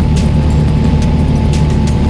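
Steady, loud drone of a small sightseeing airplane's engine and propeller, heard from inside the cabin as a deep even hum with a thin steady whine above it.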